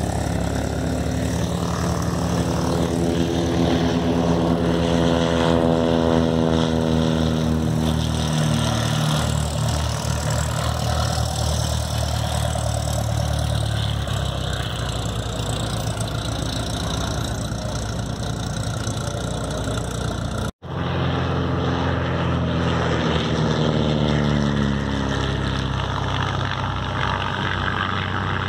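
Small propeller airplane passing low over the runway, its engine drone falling in pitch as it goes by. After a sudden brief dropout about two-thirds of the way through, another pass follows with the same falling drone.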